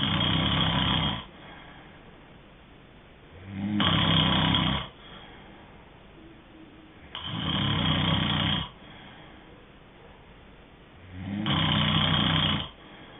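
A sleeping person snoring: four loud, rough snores about four seconds apart, each lasting a little over a second, with quieter breathing between them.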